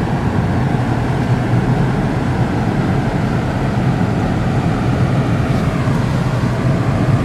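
Car engine and tyre noise heard from inside the cabin while driving, a steady low hum with road rumble.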